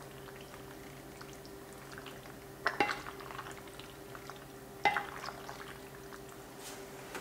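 Two wooden spoons tossing saucy pasta in a ceramic bowl: soft wet squelches and small clicks, with two sharper knocks of wood against the bowl, about two and a half and five seconds in.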